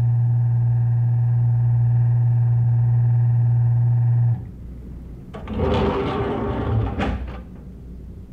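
A loud, steady low drone with higher overtones that cuts off suddenly about four seconds in, followed by quieter rough, noisy sounds.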